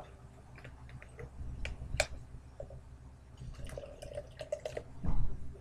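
Apple juice glugging as it is poured from a large plastic jug into a plastic cup, after a sharp click about two seconds in; a loud low thump near the end.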